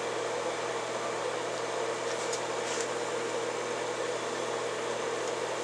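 Steady background hum and hiss, like a running fan, with two faint soft ticks about two and a half seconds in.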